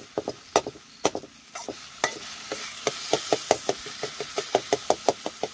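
Steel ladle knocking and scraping against a steel kadhai while stirring a frying tomato-onion gravy paste, the taps coming quicker, about five a second, toward the end. A frying sizzle rises under the taps from about halfway in.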